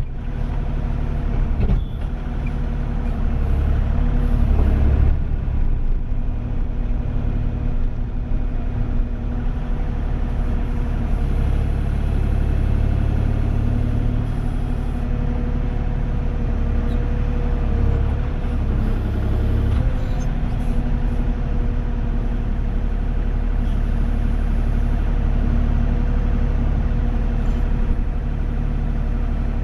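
Kubota KX040 mini excavator running steadily, heard from the operator's seat as it tracks along and works its boom and bucket.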